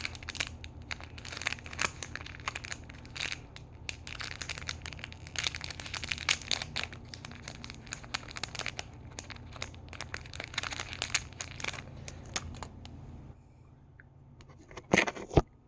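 Small plastic packaging bag crinkling and tearing as it is opened by hand, a busy run of crackles that settles about two seconds before the end. Two sharp clicks follow near the end.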